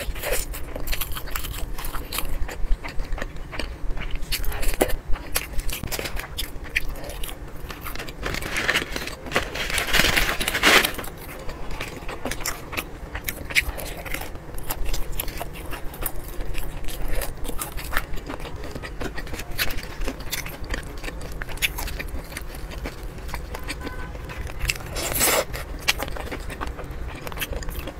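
Close-up eating sounds: crunchy bites into fried chicken and chewing, with many short crackles and mouth clicks throughout. Near the end a spoon scrapes in a plastic cup of corn.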